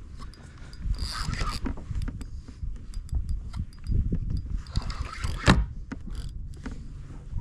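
Fishing reel being wound in bursts while playing a hooked kingfish, a mechanical whirring with a sharp click about five and a half seconds in, over a low rumble.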